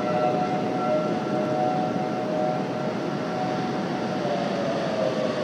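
Outdoor civil defense warning siren sounding the attack signal: a held tone with overtones that starts to fall in pitch about four seconds in. Wind noise on the microphone runs underneath it.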